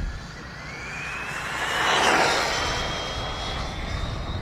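Arrma Vorteks RC car's electric motor whining higher as it accelerates hard on a 6S battery, then holding pitch near top speed. Its noise swells to a peak about two seconds in as it passes and then fades.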